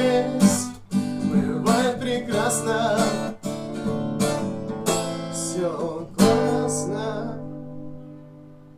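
Acoustic guitar strummed in the closing bars of a song. It ends on a final chord about six seconds in that rings out and fades away.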